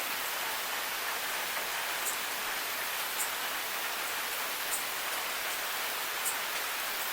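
Steady night rain: an even hiss of falling rain, with four sharp drips ticking out above it.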